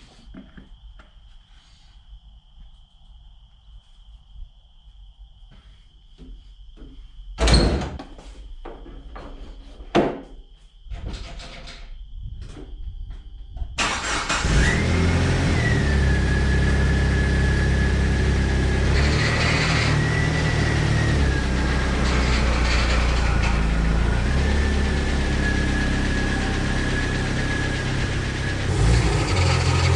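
Two sharp knocks, then about halfway through a Jeep TJ's engine starts and runs steadily, with a steady high whine over it.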